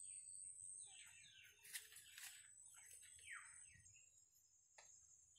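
Faint bird chirping: a quick string of short falling chirps over a thin, steady high tone, with a single click near the end.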